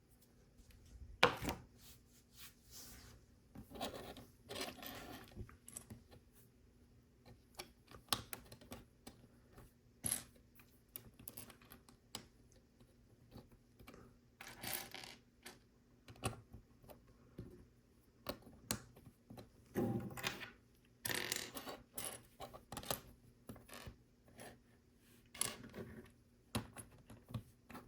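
Small plastic LEGO pieces clicking, rattling and scraping as they are picked through and pressed together, in scattered short clicks and brief rustles.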